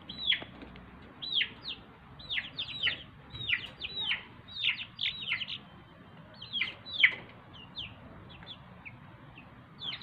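A flock of three-week-old chicks peeping: short, high calls that fall in pitch, several a second, thinning out briefly about three-quarters of the way through.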